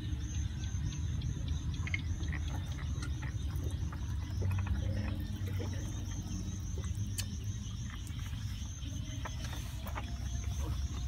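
Insects chirping steadily, a short high chirp repeated about four or five times a second, over a steady low rumble.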